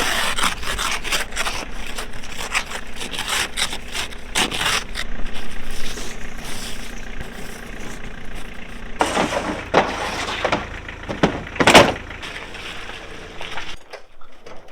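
Irregular scraping and rubbing strokes over a low steady hum, with the loudest strokes about nine to twelve seconds in.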